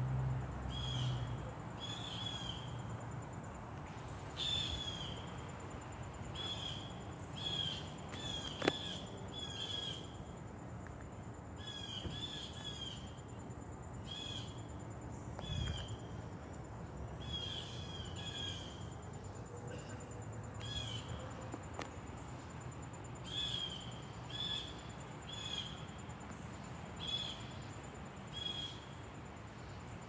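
Blue jay calling over and over, short harsh down-slurred calls about a second apart in loose clusters. A steady high thin whine and a low background rumble run underneath, with one sharp click about nine seconds in.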